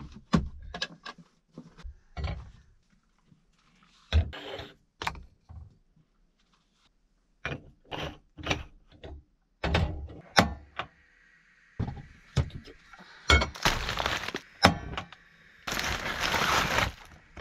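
Kitchen clatter of breakfast things being handled on a camper van's counter and hob: a string of sharp knocks, thunks and clinks, then a plastic bread bag crinkling in two longer bursts near the end.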